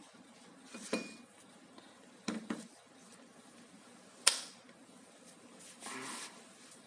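A few light knocks and clicks of hard objects being handled, with one sharp click about four seconds in and a brief scrape near the end.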